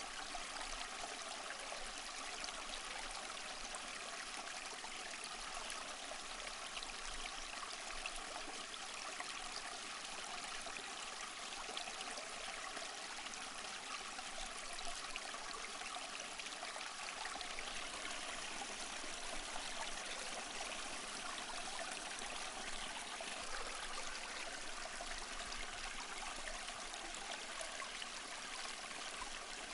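Small stream flowing: a steady, even rush and trickle of running water.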